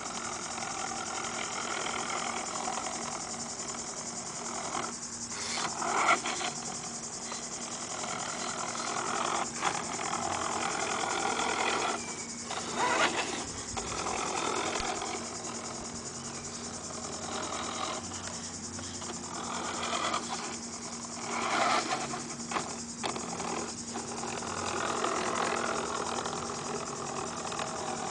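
Toy radio-controlled Hummer's electric motor and gearbox whirring as it drives, the whir cutting out briefly every few seconds and starting again with each burst of throttle.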